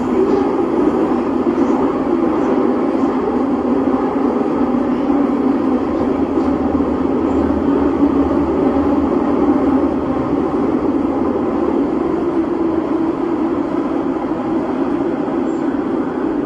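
An older-type Milan Metro train running at speed through a tunnel, heard from inside the carriage: a steady, loud noise of wheels on rails that eases slightly about ten seconds in.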